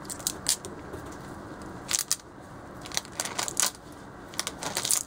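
Kitchen knife cutting through a block of atsuage (thick deep-fried tofu) held in its plastic wrapper, giving irregular short crackles in scattered clusters.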